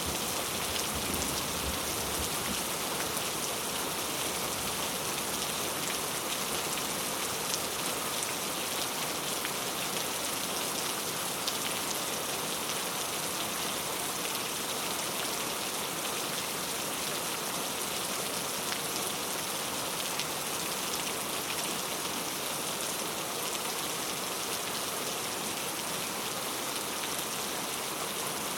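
Steady heavy rain falling on a surface, a constant hiss with scattered individual drop ticks.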